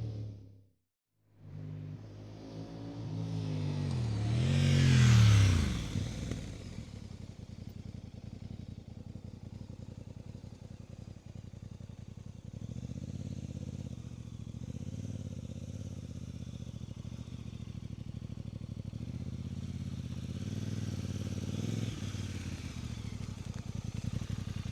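Voge DS800X Rally's 798 cc parallel-twin on its standard exhaust: after a brief silence about a second in, the engine revs up in rising surges and the bike passes close by, loudest about five seconds in, then falls away. For the rest, a lower, steadier engine note with gentle rises and falls in revs.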